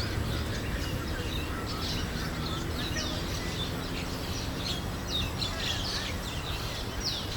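A flock of birds chirping in a treetop: many short, quick calls overlapping continuously, over a steady low rumble.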